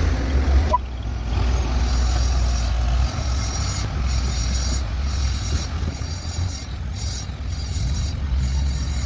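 Heavy road-construction machine's diesel engine running, a steady deep rumble with mechanical noise over it. The sound changes abruptly less than a second in.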